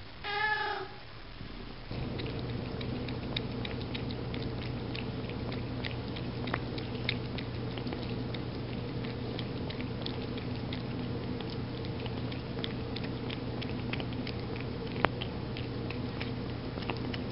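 A domestic cat meows once about half a second in, then eats wet cat food from a tin can: a long run of small, sharp wet clicks of chewing and licking over a steady low hum.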